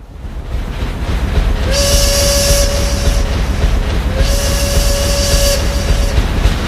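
Train sound effect in the soundtrack: a steady low rumble of a moving train, with two long horn blasts, the first about two seconds in and the second about four seconds in.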